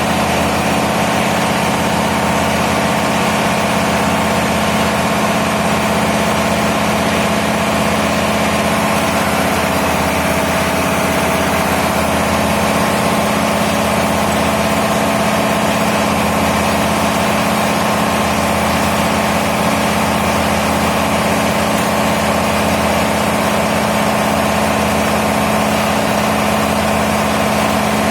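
Diesel engine running at a steady speed, a constant loud drone with no change in pitch.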